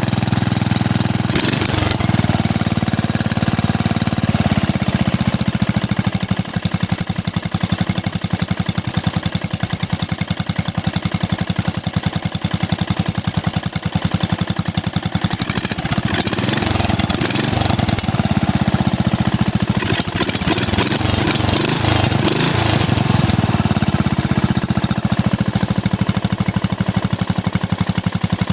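Small lawn mower engine, exhausting through a homemade shop-class muffler, running steadily with a rapid, even stream of exhaust pulses. The note turns uneven for several seconds a little past the middle, then settles again.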